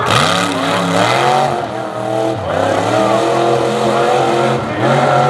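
Ford Ranger-bodied tough truck's engine revving hard on a dirt race track. Its pitch climbs, drops off and climbs again, with one dip about two and a half seconds in and another near the end.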